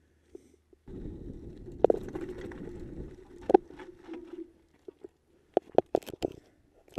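Mountain bike rolling over a loose, rocky dirt trail: a low rumble for a few seconds with knocks and rattles, then a quick run of sharp knocks near the end.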